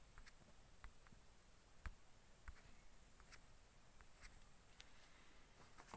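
Near silence: room tone with a dozen or so faint, irregular clicks.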